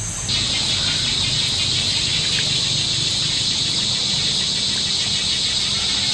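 Steady, high-pitched drone of forest insects, setting in abruptly a moment after the start and holding level throughout.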